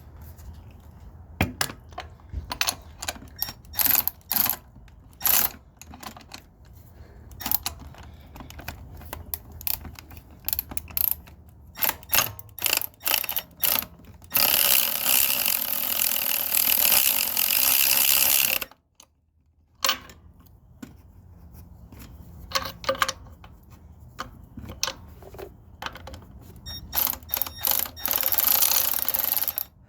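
Hand ratchet wrench clicking as engine mount nuts are run down, in short strokes with two longer spells of rapid continuous ratcheting. The sound drops out for about a second midway.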